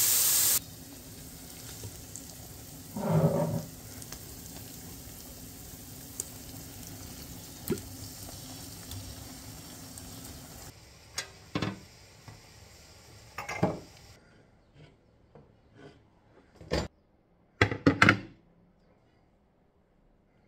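Minced meat sizzling in a non-stick pot while a wooden spoon stirs and scrapes it, with a loud hiss at the very start and a louder clatter about three seconds in. In the second half the sizzle stops, and a few sharp knocks and clunks of kitchen handling follow, the loudest near the end.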